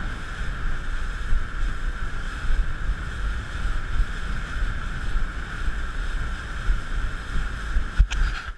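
Wind buffeting the microphone out on the water, a heavy, gusty rumble over a steady high hum. A short sharp knock comes near the end.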